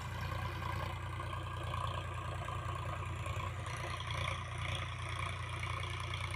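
Sonalika tractor's diesel engine running steadily, a low even drone.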